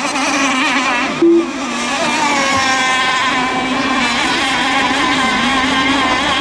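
Several radio-controlled racing boats running at speed, their engines making a high, buzzing whine that wavers in pitch, with a brief louder note about a second in.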